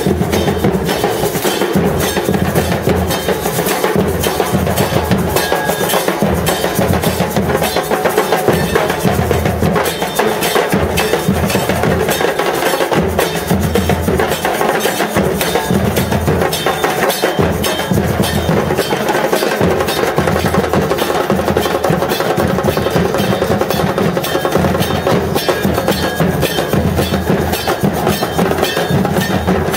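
Murga drum section playing a continuous rhythm on bass drums and snare drums, with metallic cymbal strikes.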